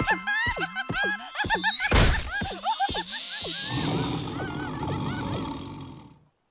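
Cartoon sound effects: a quick run of springy boings that slide in pitch, about three a second, with a heavy thud about two seconds in. A low rumbling noise follows and fades out near the end.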